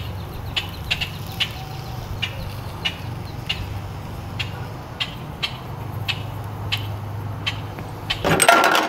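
Repeated sharp 'chack' calls of agitated great-tailed grackles, about two a second, over a steady low hum, with a louder noisy burst near the end.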